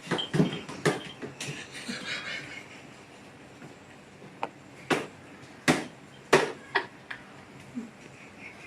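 A series of about ten irregular sharp knocks or taps, the loudest three coming in the second half.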